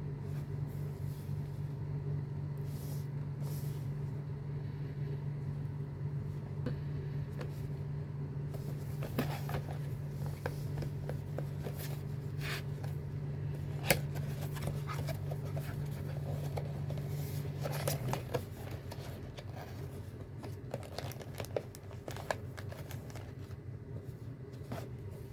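Packaging of a small Gundam figure being handled and opened: scattered clicks, rustling and tearing strokes, over a steady low hum that drops away about two-thirds of the way through.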